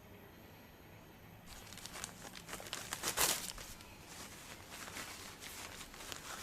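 Hands rubbing and scratching through hair and over the scalp during a head massage: an irregular crinkly rustle that starts about a second and a half in and is loudest a little past the middle.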